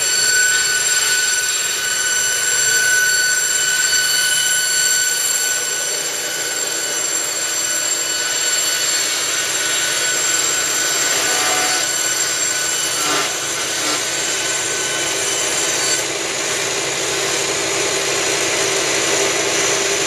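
Electric sawmill machinery running: a Timbery band sawmill and its twin-blade edger, driven by electric motors, give a steady high whine over a noisy hum. The whine stops about 16 seconds in while the machine noise carries on.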